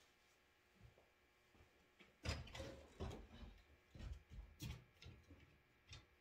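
Mostly quiet, with a cluster of faint knocks, clunks and scraping handling noises starting about two seconds in, the loudest at the start of the cluster.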